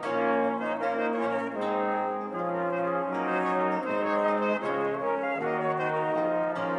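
Period brass ensemble of cornetts and sackbuts, with a lute, playing an early Baroque canzona: several sustained lines moving together in chords.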